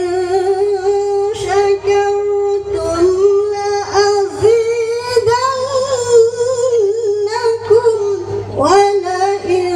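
A woman reciting the Qur'an in the melodic tilawah style, holding one long ornamented vowel for about eight seconds with wavering turns in the middle, then breaking off and starting a new rising phrase near the end. It is heard over a loudspeaker system, with a steady low hum underneath.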